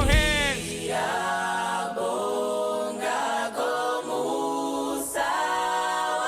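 A vocal group singing unaccompanied in harmony, holding long notes in short phrases. The backing beat and bass stop about half a second in, leaving the voices alone.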